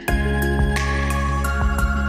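Background music with sustained tones over a steady beat, with a brief break right at the start.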